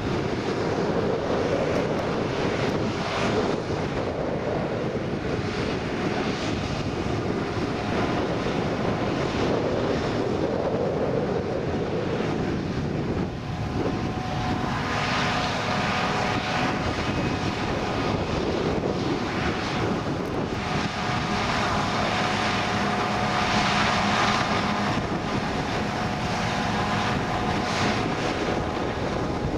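John Deere 7950 self-propelled forage harvester working flat out, chopping maize: a steady heavy engine drone with a constant whine from the chopping and blowing machinery on top.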